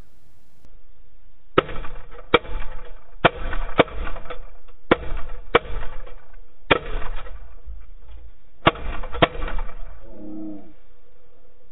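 A volley of shotgun fire from several hunters shooting at geese: about nine shots over some eight seconds, several coming in quick pairs about half a second apart.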